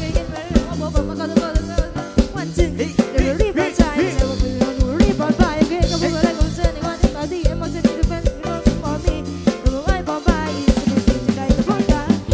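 Live Isan mor lam sam cha band playing: a steady drum-kit beat under a wavering lead melody, with no words.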